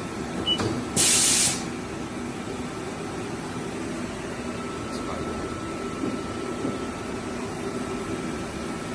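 Haas DM-2 CNC vertical machining centre running with a steady mechanical hum, and a short, loud hiss of air about a second in.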